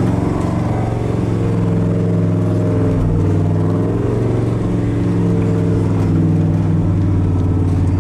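A mud truck's engine running steadily under way, heard from inside the cab, with small shifts in pitch as the throttle changes.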